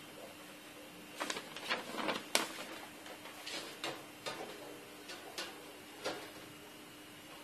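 Scattered light clicks and knocks, about a dozen at irregular intervals, from a folding charcoal grill's parts being handled and set in place.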